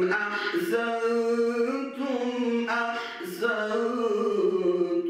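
A solo man's voice reciting the Quran in the melodic tilawah style, holding long notes that slide from pitch to pitch, with short breaks about two and three seconds in.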